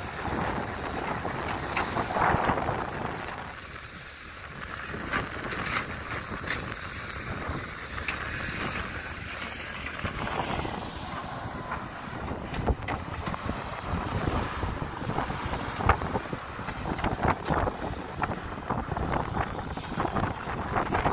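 Wind buffeting the microphone: a rough, gusting rumble with scattered pops. A loaded dump truck's engine runs underneath at the start as the truck pulls away.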